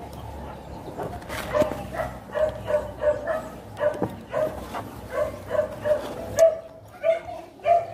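A dog barking in a rapid run of short barks, about three a second, starting about a second and a half in.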